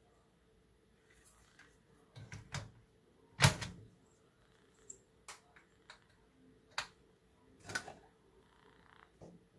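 Plastic parts of a dust-collector clamp clicking and knocking against a CNC module as the clamp is fitted on by hand. A scattered series of sharp clicks, with one much louder click about three and a half seconds in.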